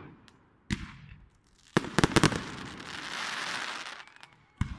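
Aerial fireworks going off: a sharp bang about a second in, three bangs in quick succession around two seconds in, then about a second and a half of dense crackling from the glittering white bursts, and another bang near the end.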